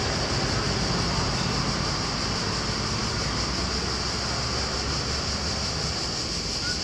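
Steady outdoor background noise: a low rumble under a constant high hiss, with no distinct events.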